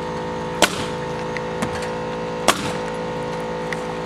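Pneumatic coil nailer firing nails through a foam insulation panel: two sharp shots about two seconds apart, with a few lighter clicks, over a steady mechanical hum.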